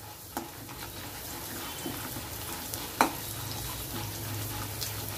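Chana dal and peanuts sizzling in hot oil in an aluminium kadai while a metal ladle stirs them, with a couple of sharp clicks of the ladle against the pan, the loudest about three seconds in.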